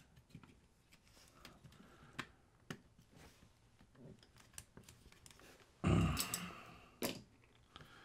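Scattered light clicks and taps of small plastic parts as a circuit board is fitted back into the plastic housing of a Corvette climate-control module. About six seconds in there is a louder brief rustle of handling, followed a second later by a sharp click.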